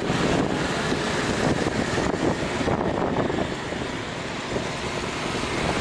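Motorbike and scooter traffic heard from a moving motorbike: a steady rush of engine and road noise, with wind on the microphone.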